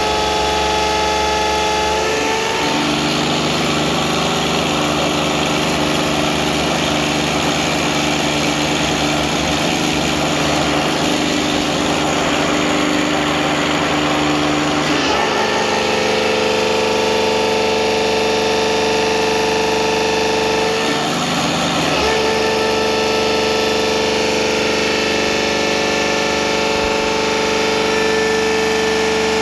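Komatsu PC200 excavator running with its repaired hydraulic main pump under test: a steady engine and pump drone with a whine whose pitch shifts as the load changes, dropping about two seconds in, stepping up about halfway through, and dipping briefly a little later.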